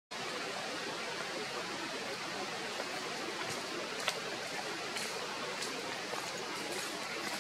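Steady, even hiss of outdoor background noise, with a few faint clicks in the middle stretch.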